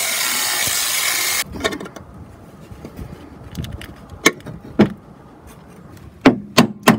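Angle grinder grinding the steel battery box, running at full speed and cutting off about a second and a half in. Then sharp metal-on-metal knocks: two about half a second apart around four seconds in, and three quick ones near the end.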